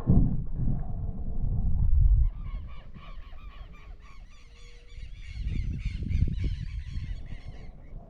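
A flock of birds calling in a dense chatter of many short, repeated notes for about five seconds, starting a couple of seconds in. A low rumbling noise is loudest at the start and returns briefly later.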